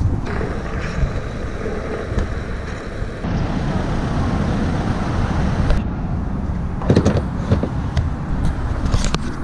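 Steady low rumble of road traffic and outdoor background noise at a fuel pump, the background changing abruptly twice, with a few knocks about seven seconds in.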